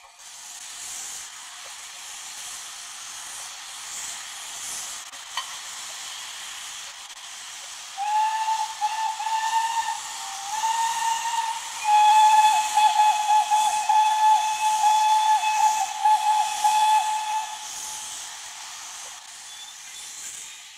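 Steam locomotive blowing off steam with a steady hiss, then whistling: three short whistles about eight seconds in, followed by one long whistle, the loudest sound here. This is the kind of whistle signalling exchanged between a train engine and its banking engine before a start.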